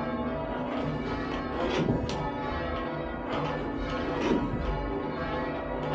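Church tower bells being rung down in rounds. The strikes follow one another closely and overlap, each bell's tone hanging on under the next, as the swing of the bells is shortened.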